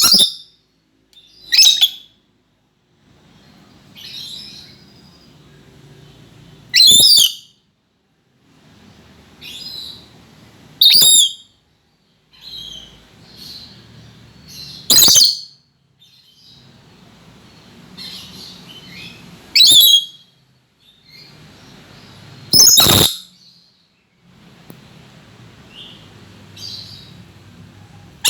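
A lory (nuri parrot) giving loud, harsh shrieking calls about every three to four seconds, with softer chattering between them.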